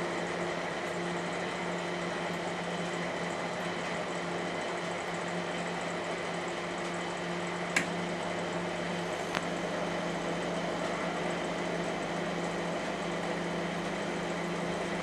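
Sharp R-250 microwave oven running a heating cycle on a cup of water: a steady hum from its transformer and fan, with one faint click about eight seconds in. It is the test run after a failed high-voltage transformer and blown thermal fuse were replaced, and the oven is heating properly.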